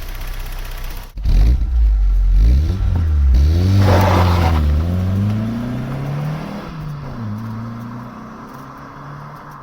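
Vauxhall Cavalier's 1.8-litre four-cylinder engine with an SRi 130 top end, running steadily at first, then pulling away and accelerating. Its note rises, drops and rises again at the gear changes, then fades. The engine is running without its earlier misfire.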